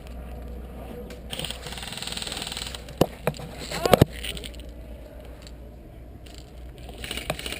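Airsoft gunfire: a few sharp snapping shots, one about three seconds in and a quick pair about four seconds in, after a short stretch of hiss.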